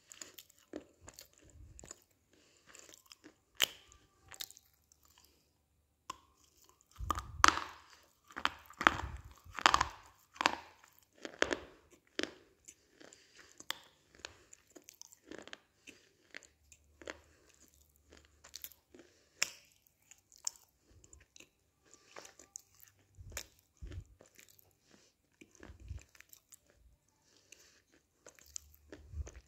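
Close-up biting and chewing of a slab of roasted butter grey clay: sharp, dry crunches, loudest and most frequent from about seven to twelve seconds in, with scattered quieter crunches and chewing the rest of the time.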